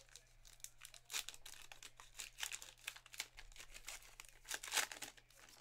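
A trading card pack wrapper being torn open and crinkled by hand, in a run of short crackling rasps that are loudest near the end.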